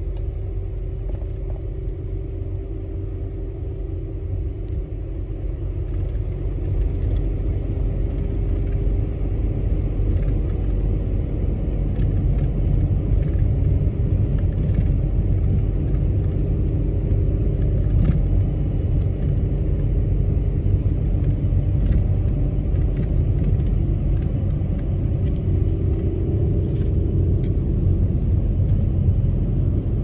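City route bus driving, heard from inside the cabin: a steady low engine and road rumble with a wavering hum, getting a little louder after the first few seconds. One brief click comes just past the middle.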